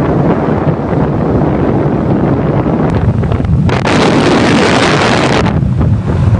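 Loud, steady rushing noise with wind buffeting the microphone, turning brighter and louder for about two seconds from the middle.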